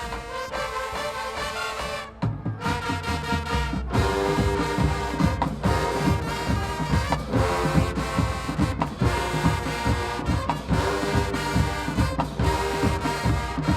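High school marching band playing, with the brass section sounding sustained chords. The drums and low brass come in after a brief break about two seconds in, and the full band plays on with a steady beat.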